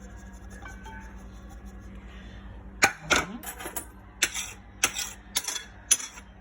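A kitchen utensil clinking and tapping against a bowl as chopped ingredients are added, a run of sharp clinks about twice a second starting about three seconds in, over a low steady hum.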